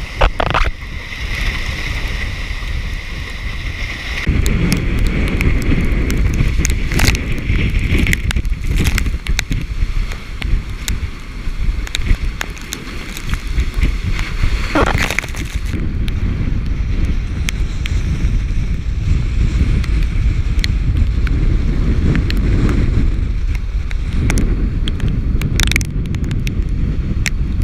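Hurricane-force wind buffeting the microphone: a heavy, gusting rumble with scattered knocks and pops, growing louder about four seconds in.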